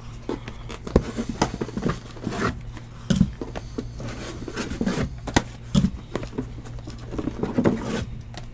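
Sealed, shrink-wrapped 2019 Panini Origins football hobby boxes being picked up and set down on a stack: irregular light knocks and scrapes of cardboard on cardboard, with the plastic wrap rubbing.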